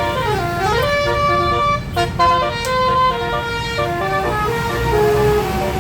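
Basuri 'telolet' multi-tone horn on a tour bus playing a melody of stepped notes, with a sliding swoop down and back up in the first second, over the low rumble of the bus.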